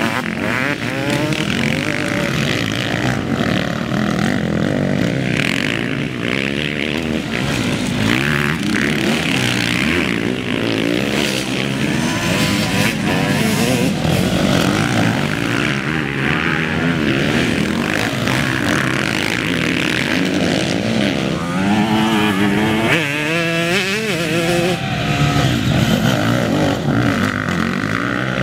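Several motocross bikes racing past through a dirt corner, their engines revving up and dropping off as each one goes by, one after another, with strong rising and falling revs about three-quarters of the way through.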